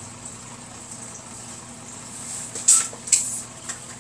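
Faint steady hiss, then twice, about two-thirds of the way through, a short sharp scuff as a hand balloon pump and a yellow latex twisting balloon are handled.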